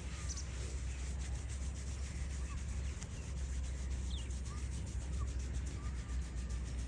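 Hands rubbing over hair and skin during a head massage: a steady rubbing made of many small quick strokes, over a steady low hum.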